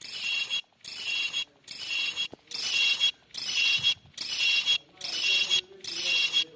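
A short, high, ringing sound effect repeated about eight times, each burst under a second long with brief silent gaps between.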